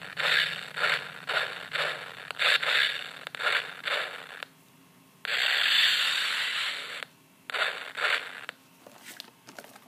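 New prop-sword sound module playing its sword swing effects through a speaker: a quick series of hissing whooshes, about two a second, then a longer hiss and a shorter one, with a few faint clicks near the end.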